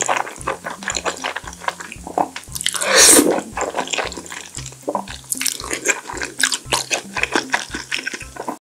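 Close-miked eating of black bean sauce noodles (jjajangmyeon): wet noodle slurping, chewing and lip smacks, with one long loud slurp about three seconds in.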